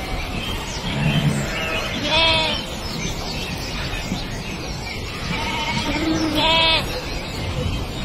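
A flock of sheep bleating: many overlapping calls over the steady noise of the flock, with two louder, longer bleats about two seconds in and again past six seconds.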